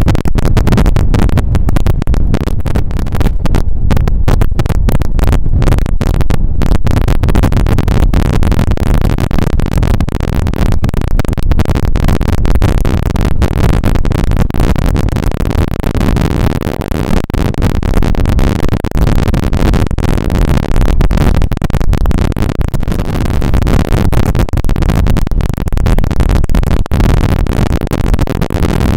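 Wind buffeting the microphone: a loud, rough, low rumble with crackle that stays at the same level throughout.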